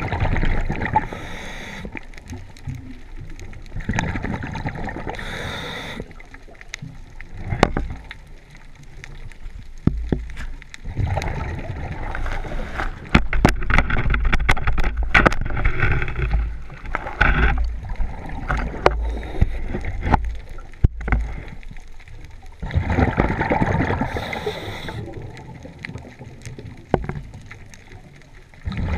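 Scuba diver's regulator breathing heard underwater through a camera housing: an inhaled hiss, then bubbling exhaled bubbles, repeating every several seconds. In the middle stretch the housing knocks and scrapes against kelp and rock, with sharp clicks over a heavy low rumble.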